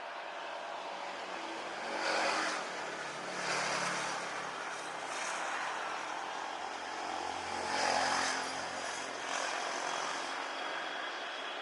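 Road traffic passing close by, several vehicles swelling and fading one after another, over the steady rush of a jet airliner's engines that grows louder toward the end as a high whine comes in.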